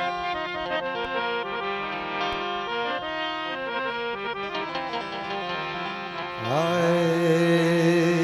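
Harmonium playing a stepping devotional folk melody over held drone notes. About six seconds in, a singer's voice comes in, sliding up into a long held note, and the music grows louder.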